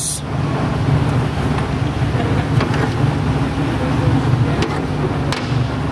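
Steady low machinery hum, with a couple of light clicks, one near the start and one near the end.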